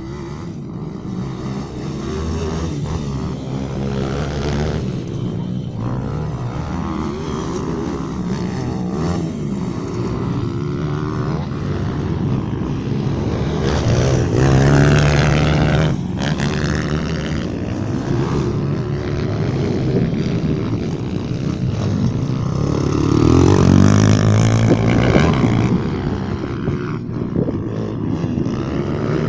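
Several pit bike engines revving up and down as the bikes race round the track, the pitch rising and falling with each turn. The loudest runs of revving come about fourteen seconds in and again about twenty-three seconds in, as bikes pass close.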